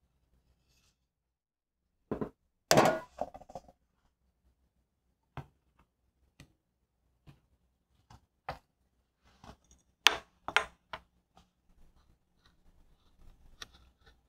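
Metal bakeware being handled: a series of sharp knocks and clinks. The loudest come about three seconds in, with a brief ring after them, and again about ten seconds in.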